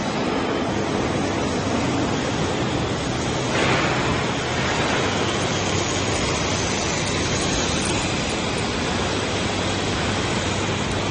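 Heavy diesel truck engine running steadily, a dense rushing noise with a low hum underneath, briefly louder about three and a half seconds in.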